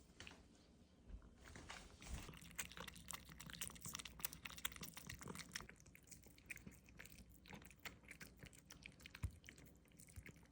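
Cats eating their food: a quick, irregular run of faint chewing clicks.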